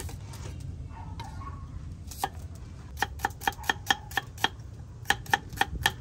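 Chef's knife slicing a small red onion on a thick wooden chopping board. There is a single knock about two seconds in, then a quick run of sharp taps, about four a second, through the second half, over a low steady background rumble.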